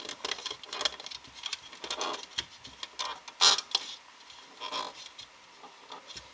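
Fingers pushing rubber loom bands down the clear plastic pegs of a loom and handling loose bands: irregular small clicks, taps and rubbery scrapes, the sharpest about three and a half seconds in.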